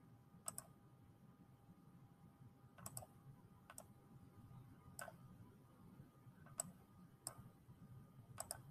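Faint, sharp computer mouse clicks, about ten scattered irregularly and several in quick pairs, as an on-screen pen tool is picked and digits are written in by hand.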